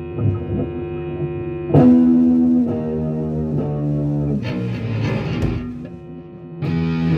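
Heavily distorted electric guitar ringing out held chords, struck anew about every second, with a hissing noisy stretch around the middle.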